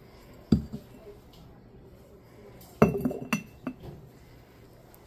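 Ceramic Santa jar and its lid clinking and knocking together as they are handled: one sharp clink about half a second in, then a quick cluster of clinks around three seconds in.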